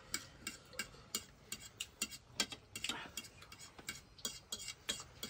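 Cutlery and dishes clicking and tapping lightly at irregular intervals, several small knocks a second.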